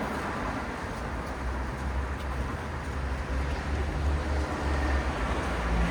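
City street traffic: cars passing with a steady tyre-and-engine hiss and a low engine rumble that grows louder near the end.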